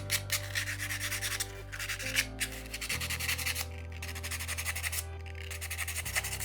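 Small piece of sandpaper rubbed back and forth over the soldering seam of a metal ring in quick, uneven strokes, cleaning hand oils off the joint before fluxing and soldering.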